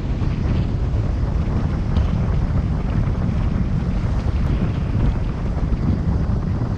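Steady low wind buffeting and rushing on the camera's microphone from a recumbent bicycle's fast downhill descent.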